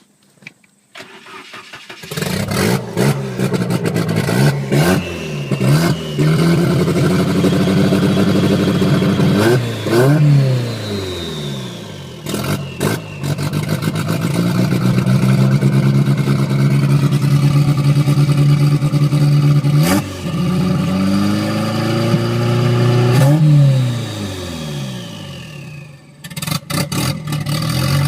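Volvo 242's turbocharged four-cylinder engine with a Holset HX40 turbo, not yet fitted with a downpipe, catches about two seconds in and runs at idle, revved up several times with the revs falling back each time. A high turbo whistle falls away as the revs drop after some of the blips.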